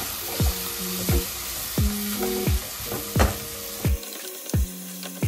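Chopped peppers, onion and tomato sizzling in oil in a nonstick pan while being stirred with a slotted spoon. Background music with a steady beat, about one thud every 0.7 s, plays over it.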